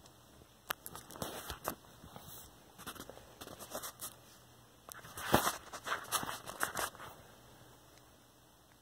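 Handling noise from a handheld phone being moved around: irregular rustles, scrapes and sharp clicks, loudest about five seconds in, then settling to a faint hum.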